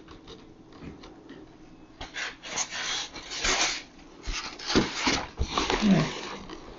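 Styrofoam packing squeaking and scraping in several rough bursts as the grain mill is worked out of its thick foam blocks in the box.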